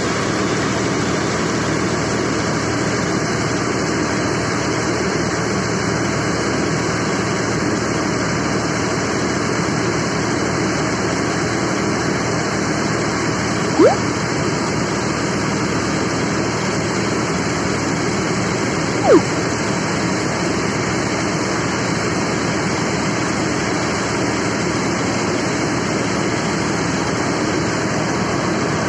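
Kuldeep combine harvester running steadily at work, a dense even machine din. Two brief squeaks stand out, about halfway through and again a few seconds later.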